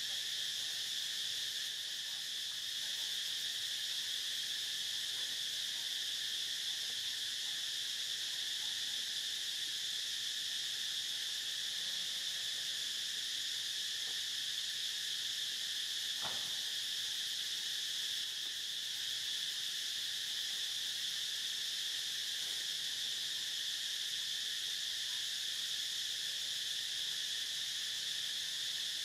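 Steady, high-pitched drone of an outdoor insect chorus, unbroken throughout.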